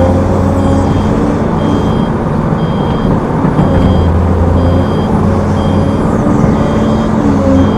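Heavy diesel machinery running steadily under load, with a back-up alarm beeping about once a second.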